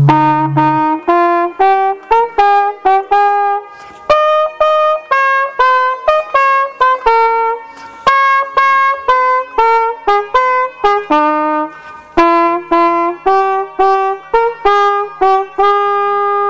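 Trumpet playing a solemn melody in about four phrases of short notes with brief breaks between them, ending on a long held note.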